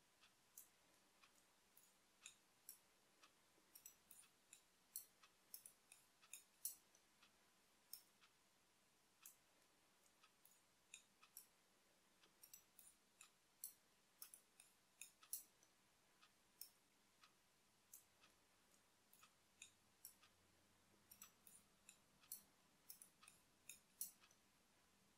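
Knitting needles clicking faintly and irregularly, sometimes two or three clicks in quick succession, over a near-silent room.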